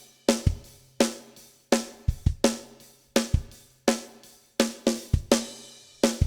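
Recorded drum beat played back through the processed snare channel: a tight, high-tuned Ludwig Acrolite 14x5 snare cracking in a steady groove with bass drum thumps between the strokes, the snare carrying console EQ, compression, saturation and a touch of reverb.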